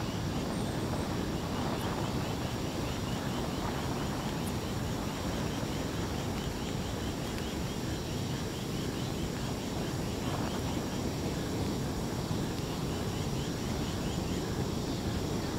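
Diesel-soaked cardboard burning in open flames with a steady low rushing noise, over a fast, even chirping in the background.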